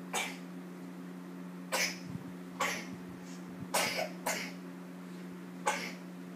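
A person coughing: six short, separate coughs spread over a few seconds, over a steady low hum.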